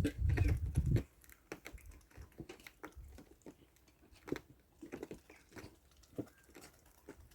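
A pet chewing food: soft, irregular crunching clicks. A loud low rumble of handling or wind noise fills about the first second.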